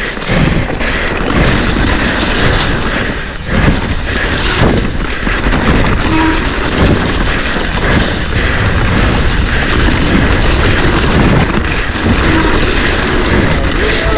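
Mountain bike descending a wet, rough trail: continuous rattle and rumble of the bike and tyres over the ground, with many small knocks throughout.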